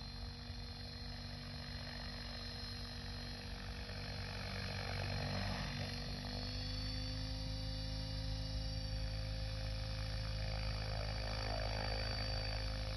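Electric Mikado Logo 800 Xxtreme radio-controlled helicopter flying at a distance: a steady whine of motor and rotor that steps slightly higher in pitch about six seconds in and grows a little louder.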